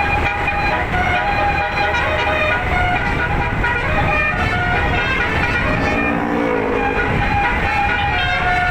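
Telolet basuri multi-trumpet musical air horn playing a melody of held notes, one after another, with a sliding, bending note about two-thirds of the way through. A low rumble runs underneath.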